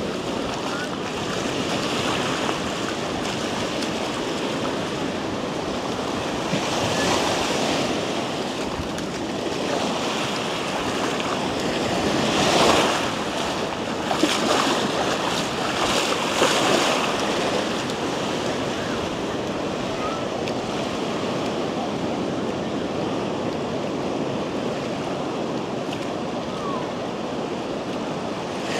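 Ocean surf: waves breaking and washing up the beach in a continuous rush, with a few louder breaking surges around the middle, and some wind on the microphone.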